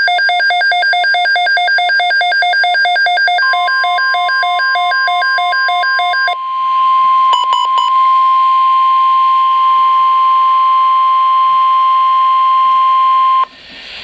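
Midland WR-100 weather radio alerting for a flash flood watch: a rapid pulsing electronic beep, joined about three seconds in by the NOAA Weather Radio's long steady 1050 Hz alert tone. The beeping stops about six seconds in, a few clicks follow, and the steady tone carries on alone until it cuts off near the end.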